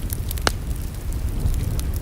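Wood fire crackling in a fireplace: scattered sharp pops and snaps, one louder pop about half a second in, over a steady low rumble.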